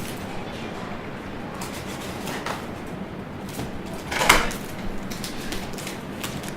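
Hands opening a cardboard shipping box: scattered scrapes, taps and rustles of the packaging, with one louder tearing scrape about four seconds in.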